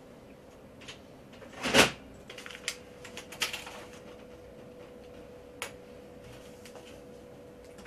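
A loud short bump about two seconds in, followed by a scatter of small clicks and rustles and one more click later, over a faint steady hum.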